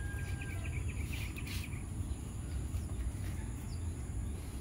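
Outdoor ambience: a steady high insect buzz, with a quick run of bird chirps in the first second and a half, over a low rumble.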